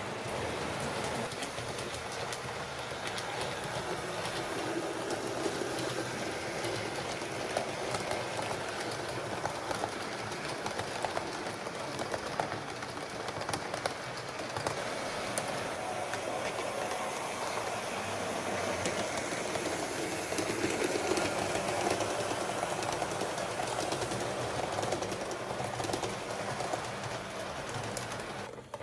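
HO scale model train running along the track: a steady rolling sound with many fine clicks, cutting off at the very end.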